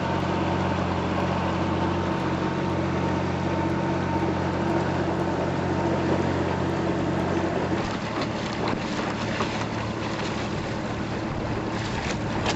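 Motorboat engine running steadily under way, a low even hum. About two-thirds of the way through, the hum gives way to wind buffeting the microphone and rushing air and water.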